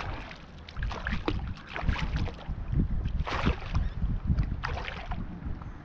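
A hooked fish thrashing and splashing at the water's surface beside a kayak. There are several splashes, the largest about three and a half seconds in, with wind rumbling on the microphone throughout.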